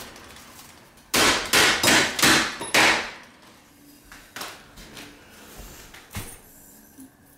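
Sharp metallic knocks of a hand tool striking at an old window frame's thin aluminum strip to break it out: five quick strikes about a second in, each ringing briefly, then a few faint taps.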